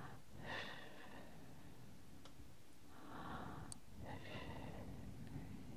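Breathy whispering and breaths close against a binaural microphone, in two soft stretches: a short one about half a second in and a longer one from about three seconds in.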